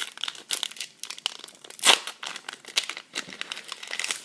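Foil booster pack wrapper crinkling as it is torn open and handled, an irregular crackle with one louder burst about two seconds in.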